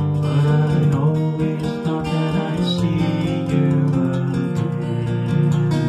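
Steel-string acoustic guitar strummed steadily in a fingerstyle-and-strum accompaniment of chords.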